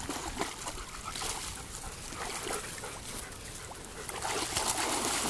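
Water splashing as several German shepherds wrestle and wade in shallow pond water, louder from about four seconds in.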